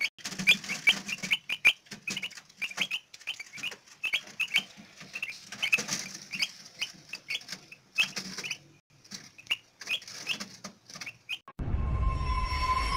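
Newly hatched chicks peeping over and over, short high cheeps several a second, mixed with light clicks. Near the end a loud music sting swells in.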